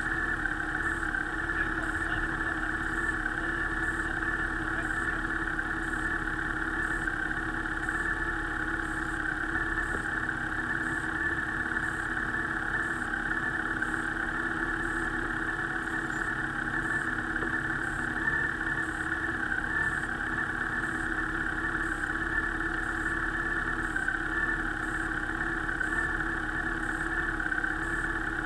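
Motorcycle engine idling steadily at a constant pitch.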